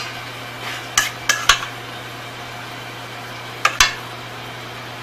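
A metal spoon clinking against a stainless steel mixing bowl while dressing watercress with vinaigrette: three quick clinks about a second in and one more near four seconds, over a steady low hum.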